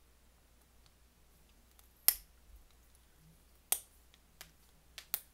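Clear plastic packaging of a honeycomb box clicking and snapping sharply as it is handled and pried at: a few separate snaps, the loudest about two seconds in, another nearly two seconds later, and smaller clicks near the end.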